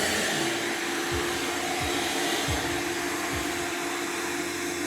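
Vacuum cleaner running steadily, a constant rushing noise with a steady hum under it, sucking up dust.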